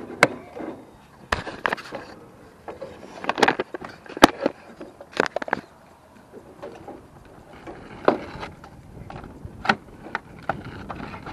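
Irregular knocks, clanks and scraping as old roof flashing is pried and pulled loose by hand, with two louder bangs, one just after the start and one about four seconds in.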